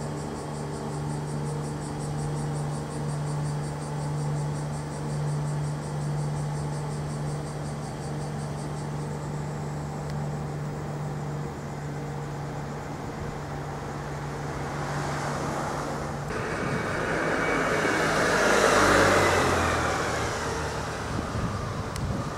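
A steady low hum with even overtones, then a motor vehicle passing close by: it starts suddenly about two-thirds of the way through, swells to its loudest a few seconds later and fades away near the end.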